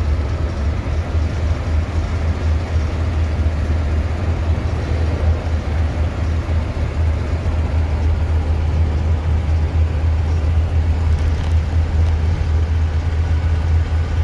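Steady low drone of a 1986 Fleetwood Southwind motorhome's engine with road noise, heard inside the cab while cruising at highway speed.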